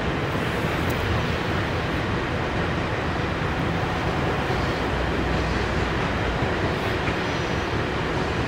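Long freight train of open-top hopper cars rolling along the track, a steady, unbroken rumble of steel wheels on rail.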